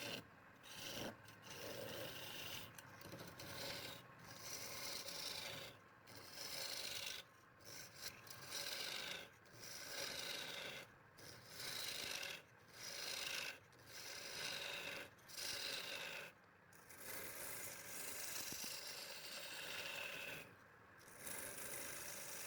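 Wood being cut or sanded on a lathe: a rasping scrape against the spinning wood. It comes in repeated passes broken by short pauses about every one to two seconds.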